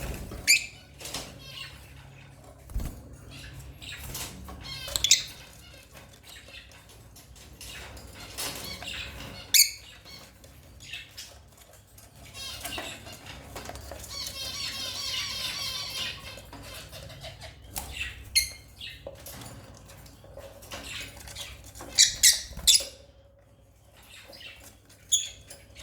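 African lovebirds chirping: sharp, loud squawks every few seconds, with a longer twittering trill in the middle.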